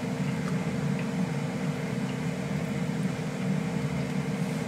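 A kitchen appliance's fan motor running with a steady hum.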